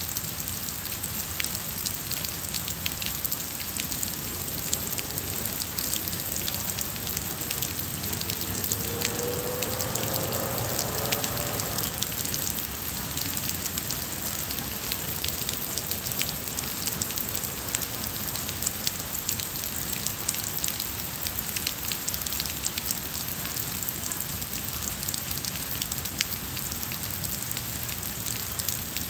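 Steady rain falling, with many small drop ticks close by. A faint rising tone is heard briefly about a third of the way in.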